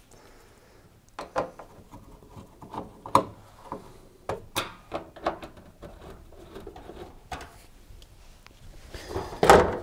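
Hand screwdriver turning out screws from the sheet-metal heater cover on the back of a tumble dryer: irregular small clicks and scrapes of metal on metal, a little louder near the end.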